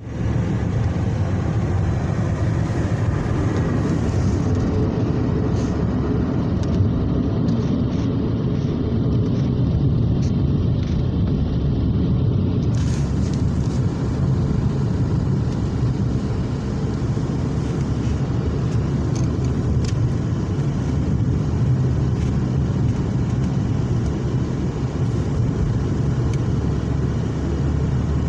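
Steady road rumble inside a moving car's cabin: the tyres on the asphalt and the engine, heard as a constant low drone.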